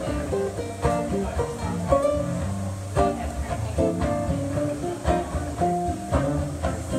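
Nylon-string classical guitar fingerpicked: a melody of single plucked notes over low bass notes.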